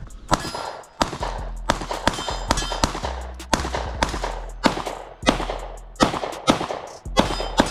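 Rapid string of 9mm pistol shots, about two a second, each sharp crack trailing off in a short echo.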